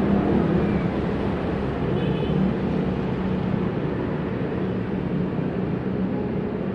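Steady jet aircraft engine rumble with a low, even hum.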